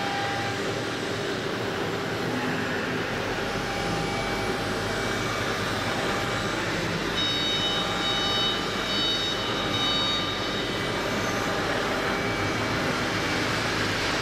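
Steady running noise of a CNC machine, with short high-pitched whining tones coming and going about seven to ten seconds in.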